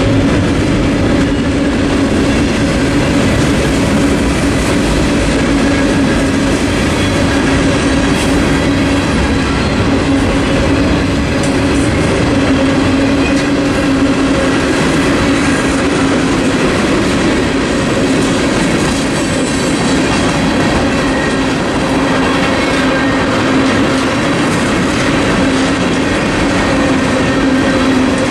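A freight train's boxcars and tank cars rolling steadily past at a level crossing: a continuous rumble and clatter of wheels on the rails, with a steady tone running under it.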